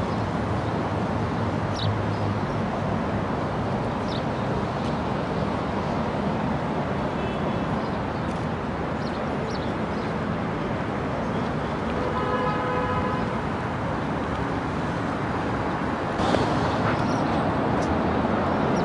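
Steady outdoor city traffic noise across an open square, with a short horn toot about twelve seconds in and a few faint clicks.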